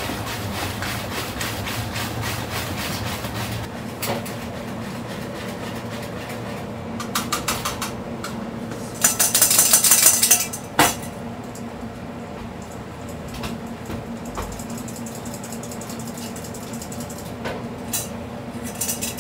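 Wire whisk beating a chocolate batter in a plastic bowl, fast steady strokes that stop after about four seconds. About halfway through, dry ingredients are shaken through a metal mesh sieve with a bright hissing rattle for a second or so, then a sharp knock, and a few light clinks of utensils follow.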